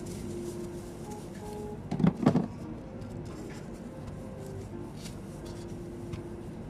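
A brief clatter of several quick knocks about two seconds in, from things handled at a kitchen counter, over steady kitchen background noise.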